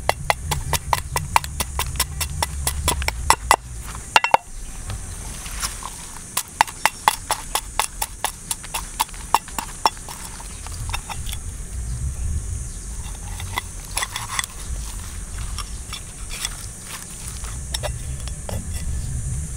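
Cleaver blade scraping the scales off a whole fish in quick repeated strokes, each stroke a sharp click, several a second, with a short break about 4 s in and fewer, more spaced strokes in the second half.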